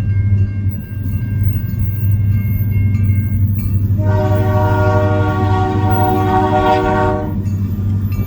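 Train locomotive horn sounding one long blast of about three seconds, beginning about halfway through, over a steady low rumble from the train.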